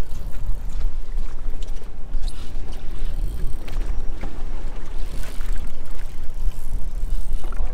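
Wind buffeting the microphone in a steady low rumble over the sound of the boat on open water, with a few faint clicks.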